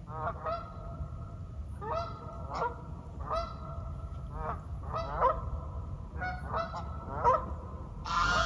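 Geese honking in repeated bursts of several calls, a burst every second or so, over a steady low rumble. A louder rushing sound cuts in just before the end.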